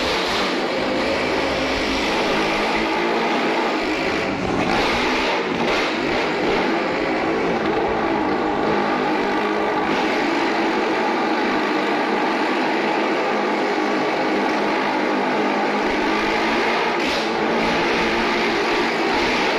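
Motorcycle engines revving hard and without a break as two riders circle the vertical wall of a wall-of-death drum, the pitch rising and falling with the throttle.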